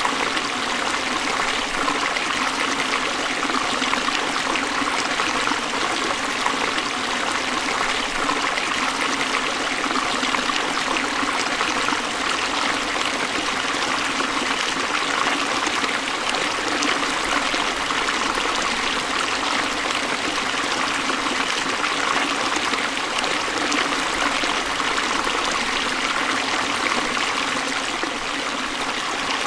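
Forest stream running and splashing over rocks, a steady, even rush of water.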